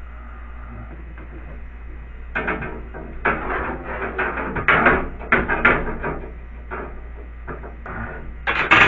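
Irregular handling noise of hands working with tape and rods: a run of short knocks, taps and scrapes starting about two seconds in, over a steady low hum.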